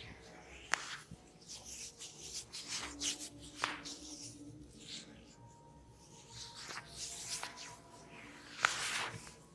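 Hands rubbing and kneading through hair and over the scalp: irregular rustling swishes, broken by three sharp clicks or slaps, about a second in, near the middle and near the end.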